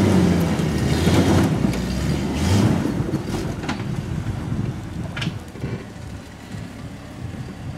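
Off-road Jeep engine working under load as the vehicle crawls up a steep rocky slope. It is loud for the first few seconds, then fades as the Jeep climbs away. There are a couple of sharp knocks along the way, with wind noise on the microphone.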